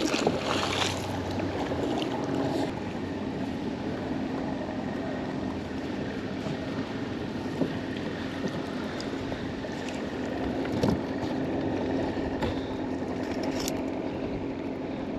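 A magnet on a rope splashes into the river in the first second, then steady wind and water noise with a faint steady low hum and a few small knocks while the rope is hauled back in by hand.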